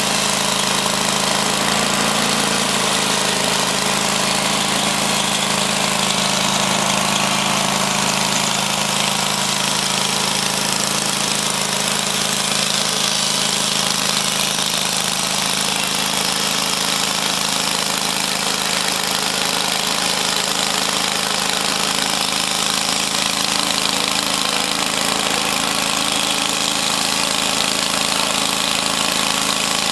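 Portable sawmill running steadily: an even engine hum under a broad, constant hiss, with no change across the stretch.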